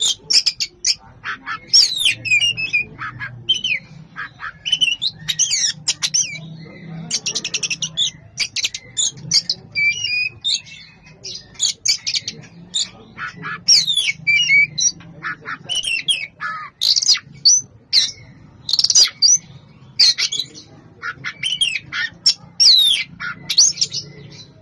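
Caged Oriental magpie-robin singing a dense, nearly unbroken song of varied whistles, sweeping up-and-down notes and rapid trills, with only brief pauses.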